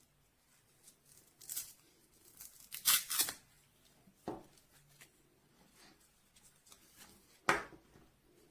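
Short rustling, scraping handling noises, a handful of separate ones, the loudest a pair about three seconds in and another about seven and a half seconds in.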